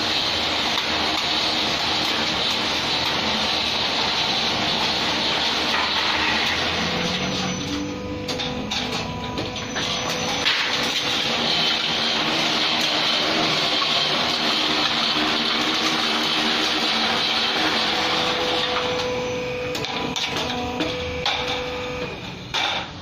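Roll-forming machine for galvalume hollow ceiling profiles running: a steady mechanical whir with a high hiss. It eases off for a few seconds in the middle with scattered clicks, and a sharp knock comes near the end.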